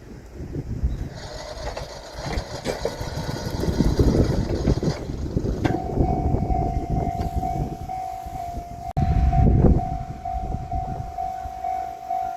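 Japanese railroad crossing warning alarm starting up about five and a half seconds in, a steady electronic tone pulsing at an even rate, over heavy low rumbling noise.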